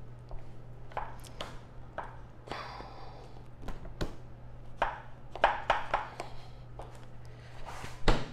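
Plastic clicks and knocks from a Can-Am Ryker passenger seat being seated on its mount while its stiff locking button is pushed and struck: an irregular series of sharp taps, with the loudest knock near the end.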